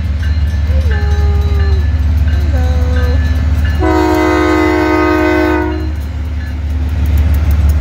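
Diesel freight locomotives rumbling steadily as they pass slowly at close range. About four seconds in, a multi-tone train air horn sounds for about two seconds.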